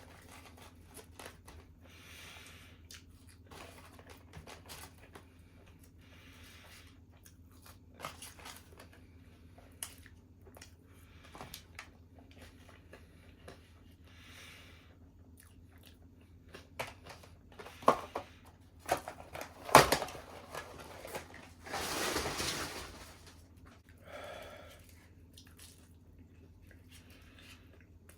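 Close-up sounds of a person chewing and biting food, with small wet clicks and crunches over a steady low hum. A few sharper knocks come past the middle, followed by a louder noisy stretch of about two seconds.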